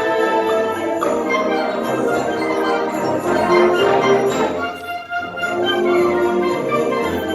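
Background music: an orchestral piece of held, layered notes, dipping briefly in loudness about five seconds in.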